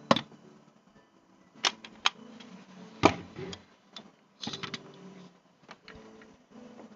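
Irregular sharp clicks and knocks from a monopod/tripod being handled, with the loudest knock about three seconds in and a quick run of clicks about halfway through.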